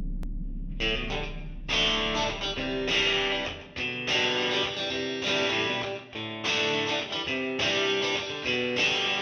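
Background music: strummed guitar chords in a steady rhythm, coming in about a second in as a low fading sound dies away.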